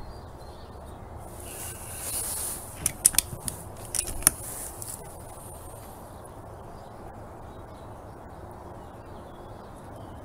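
Air rifle being cycled for the next shot: a brief sliding rasp about a second in, then a run of sharp metallic clicks around three to four seconds in.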